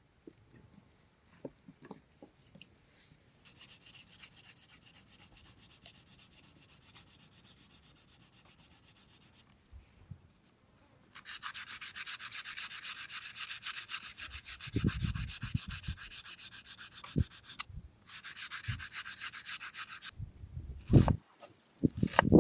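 Rapid, even rasping strokes, a hand scraping or grating, in three long runs with short pauses between them. A few low thumps come around the middle, and louder knocks near the end.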